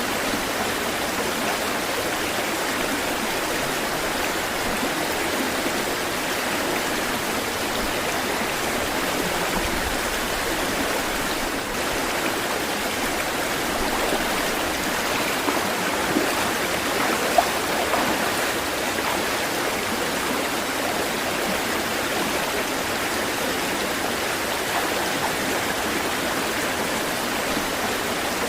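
Flowing water rushing steadily and evenly, with two brief sharp sounds a little past halfway.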